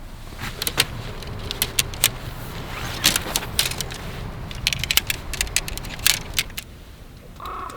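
Tent gear being handled: an irregular run of sharp metallic clicks and clinks, with a steady low rumble of wind and sea underneath.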